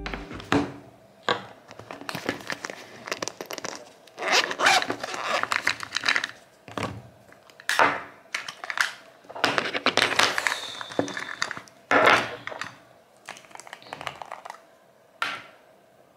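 Plastic cosmetics packaging crinkling and rustling in the hands in irregular bursts, with a few sharp clicks of makeup cases on a tabletop.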